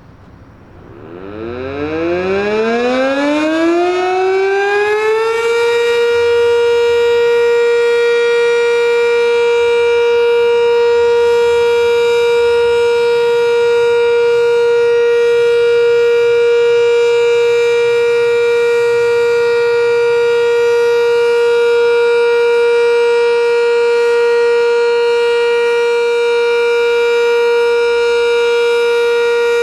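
Sentry 3V8-H outdoor warning siren winding up from rest, its pitch rising over about four seconds with a hiccup in the climb, the sign of a single-phase motor. It then settles into a loud, steady tone for the two-minute alert test.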